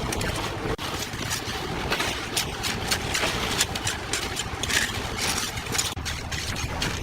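A machine engine running steadily, with irregular scraping and clattering over it. A low steady hum firms up about six seconds in.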